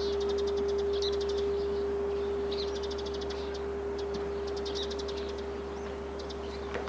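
Large bronze Buddhist temple bell (beomjong) humming after a strike: one steady tone slowly fading away. Small birds trill in quick bouts over it, and there is a light knock near the end.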